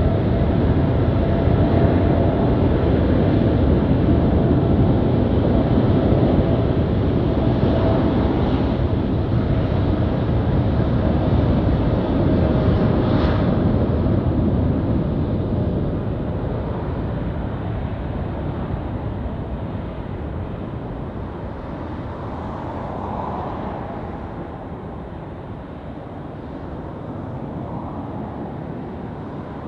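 Boeing 787-9's Rolls-Royce Trent 1000 jet engines at takeoff power on the takeoff roll: a loud, steady jet roar with a high whine over it. The roar fades gradually over the second half as the airliner speeds away down the runway.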